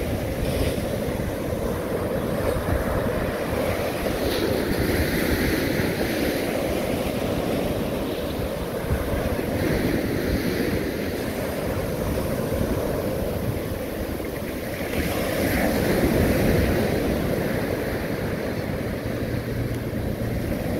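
Ocean surf breaking and washing up the beach, with wind rushing over the microphone. The surf swells and fades, loudest about fifteen to seventeen seconds in.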